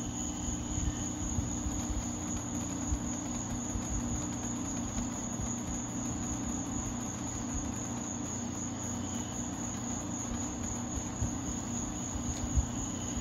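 1983 Gibson Slumbermaster window air conditioner running steadily, its fan and Matsushita rotary compressor giving a low, even hum. It is extremely quiet, as is typical of a rotary compressor.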